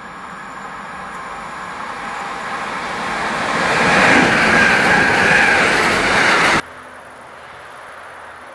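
Freight train hauled by two TRAXX electric locomotives approaching and passing close by, the rumble and rattle of wheels on rail growing steadily louder, with a high squeal from the wheels on the curved track. The sound cuts off abruptly about two-thirds of the way through, leaving only faint, even background noise.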